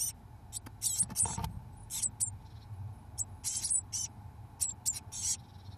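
Blue tit nestlings begging for food: many short, high-pitched squeaking calls in quick irregular runs, over a faint steady hum.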